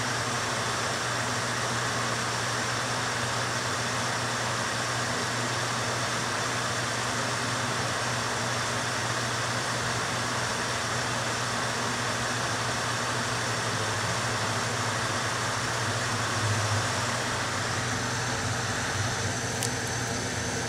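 Steady rush of a blower fan pushing air through a flexible foil dryer duct, with a low hum underneath. A single faint click near the end.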